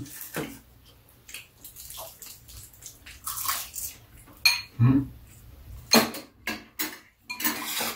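Metal spoons and chopsticks clinking and scraping against ceramic bowls during a meal, with a quick run of sharp clinks in the second half, and soup being slurped from a spoon.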